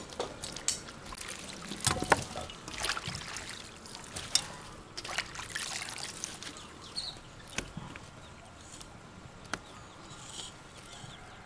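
Celery and cabbage being washed by hand in a steel bowl of water and dropped into a metal colander: irregular splashes, drips and light knocks, thinning out near the end.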